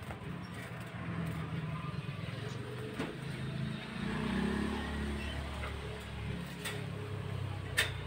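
Low rumble of a motor vehicle running, swelling about halfway through, with a few sharp clicks from a hand working inside a wire birdcage.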